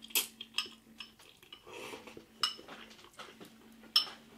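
Metal fork clinking against a bowl of noodles, a handful of separate sharp clinks spread through, over a faint steady hum.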